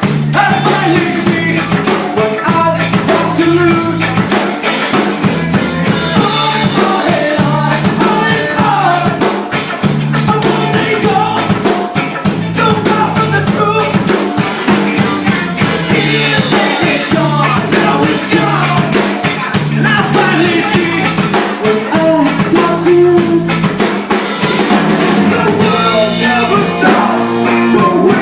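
A rock band playing with drums, bass, guitar and singing.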